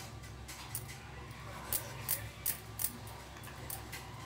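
Steel kitchen knife cutting through a ripe mango on a wooden cutting board, the blade striking the board in a string of short, sharp, irregular clicks.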